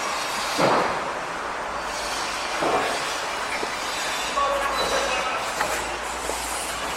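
Construction site din: a steady mechanical rumble mixed with high metallic squeals and scraping. Louder swells come about half a second in and again near the three-second mark.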